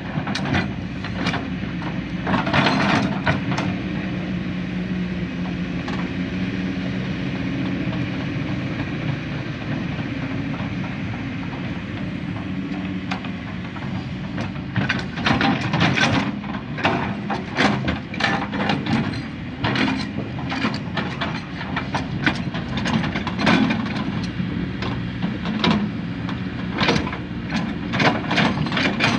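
Heavy diesel construction machinery engine running steadily under load, with repeated sharp clanks and knocks of metal and material. The knocking grows frequent in the second half.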